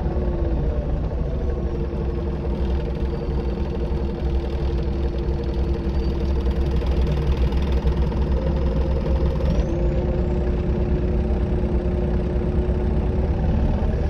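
Optare Solo SR bus heard from inside the passenger saloon: the diesel engine and driveline running with a steady deep rumble and a couple of steady whining tones, whose pitch shifts about two-thirds of the way through.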